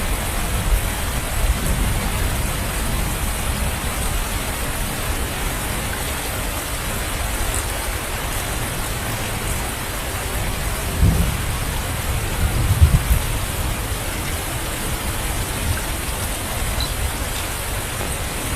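Steady heavy rain falling and pattering on surfaces, with brief low rumbles about eleven and thirteen seconds in.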